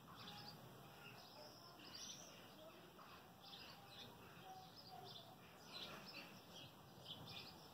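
Faint birdsong: birds chirping with short, repeated calls throughout, over a low background hiss.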